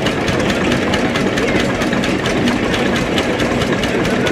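Vintage Svoboda tractor's single-cylinder diesel engine idling steadily, with an even, regular beat of firing strokes.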